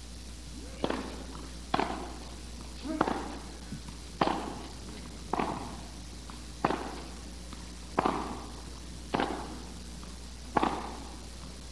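Tennis rally: a ball struck back and forth with rackets, about nine crisp hits a little over a second apart, each echoing briefly in a large indoor hall.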